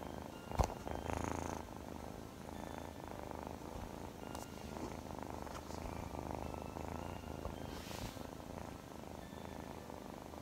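Scottish Fold kitten purring steadily, right up against the microphone, with a single sharp tap about half a second in.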